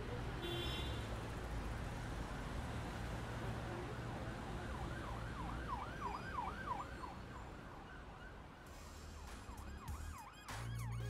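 City traffic rumble with an emergency vehicle siren yelping, its pitch sweeping quickly up and down, about halfway through and again near the end.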